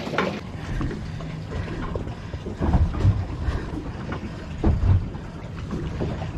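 Wind buffeting the microphone over water washing against a boat's hull, with two louder low buffets near the middle.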